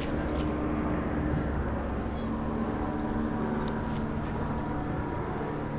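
A boat motor running steadily: a low rumble with a faint steady hum that drops out briefly and comes back.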